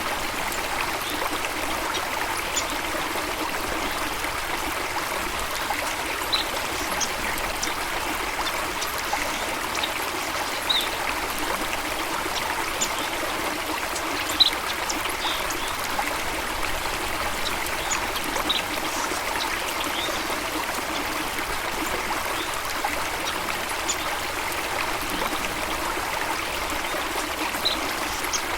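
Steady flowing water of a stream or waterfall, an even rushing and trickling with no pauses, with short high bird chirps now and then.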